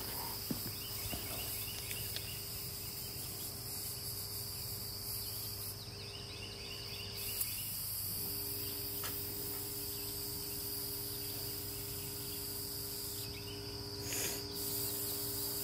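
Handheld plasma cutter cutting through steel plate: a steady hiss with a high, even whine.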